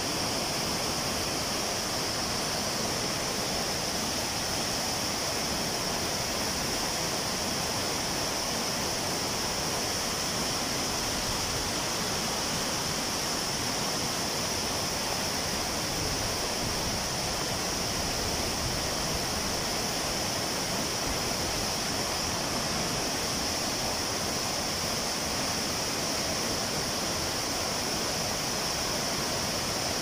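Wachirathan Waterfall's tall cascade falling onto rocks: a steady, unbroken rush of water.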